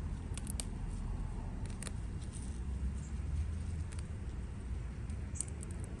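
A few light, crisp clicks and rustles of a hand picking through cilantro stems and leaves, a small cluster of them near the end, over a steady low rumble.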